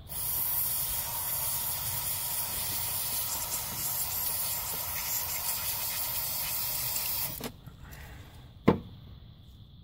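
Aerosol cleaner spraying in one long, steady hiss that stops after about seven seconds, washing grit off an alternator wiring plug. About a second later comes a single sharp click.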